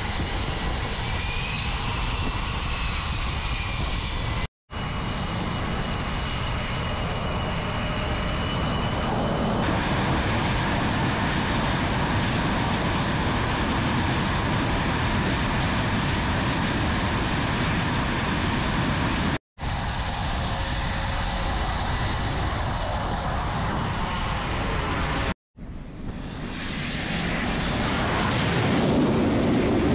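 Twin jet engines of F/A-18 Super Hornet fighters running on the flight deck, a loud steady roar with a high whine over it, broken by three brief cuts. In the last few seconds one jet goes to launch power and is catapulted off, the sound swelling to its loudest.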